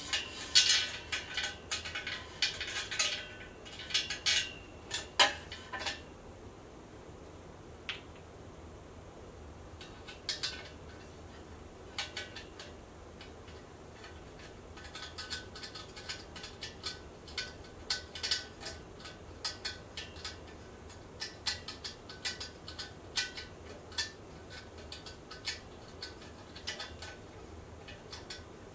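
Bolts being driven by hand into a metal desk frame's corner joint: a series of small metallic clicks and ticks from the tool and hardware. The clicks come thick and loud for the first few seconds, turn sparse, then resume as a run of lighter clicks through the second half.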